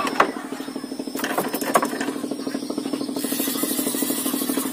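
A small engine runs steadily with a fast, even chugging. A few light clicks come in the first two seconds.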